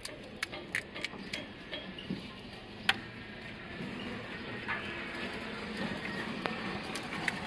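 Sharp cracking clicks of crisp, hollow panipuri shells being poked open by thumb, several in quick succession in the first second and a half and the loudest about three seconds in, over a steady background hum.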